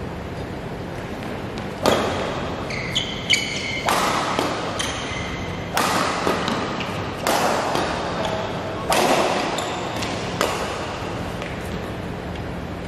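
A badminton rally: about seven sharp racket strikes on a shuttlecock, roughly one every second and a half, each ringing briefly in a large hall. Short squeaks, typical of court shoes on the floor, come early in the rally.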